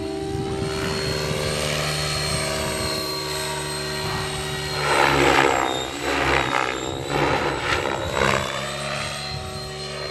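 Align T-REX 700E electric RC helicopter flying, with a steady high whine from its motor and gears. The rotor blades swish loudly as it makes a fast pass about five seconds in, and again, more briefly, a couple of seconds later.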